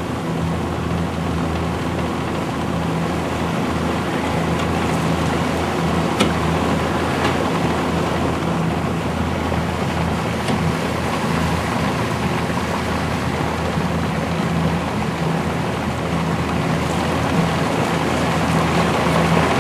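Small motorboat's engine running steadily at cruising speed, with water rushing along the hull and wind noise.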